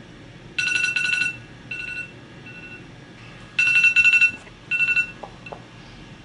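Electronic alarm ringing with a rapidly pulsing, high electronic tone. It goes in two rounds, each a longer ring followed by two shorter rings that fade.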